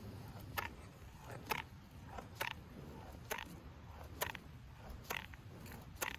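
Cow grazing close by, tearing grass in short crisp rips about once a second, with lighter crunching in between.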